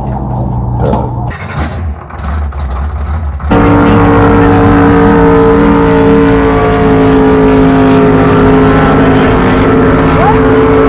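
Race boat's engine running at low speed under wind noise on the microphone. About three and a half seconds in, after a cut, it gives way abruptly to the engine running loud and steady at a fixed speed close by.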